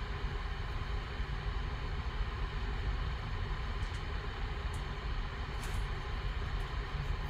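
Steady low rumble and hiss of background room noise, with a few faint soft clicks near the middle as cards in plastic sleeves are handled.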